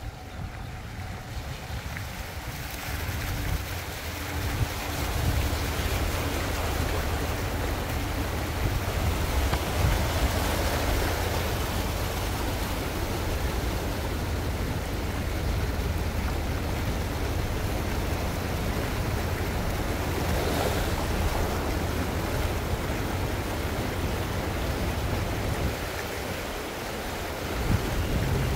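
A moving vehicle with a steady rushing noise and a heavy low rumble, which grows louder about three seconds in and dips briefly near the end.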